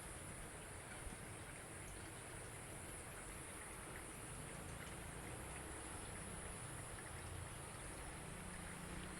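Faint steady background hiss with a thin constant high-pitched drone and a single small tick about a second in; no bird calls are heard.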